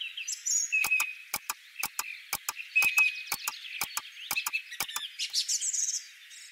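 Clock ticking sound effect, a quick tick-tock about twice a second, over a background of high chirping wildlife ambience.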